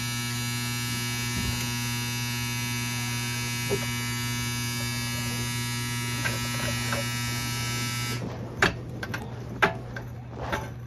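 Steady electric buzz with a low hum underneath, cutting off abruptly about eight seconds in, followed by a few sharp knocks and clanks.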